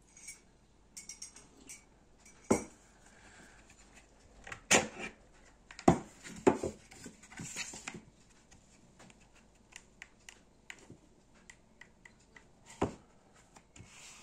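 Hard plastic clicks and knocks of a cordless power-tool battery pack being slid off its charger and handled on a tabletop. There are several sharp knocks, the loudest about two and a half, five, six and thirteen seconds in, with lighter ticks between them.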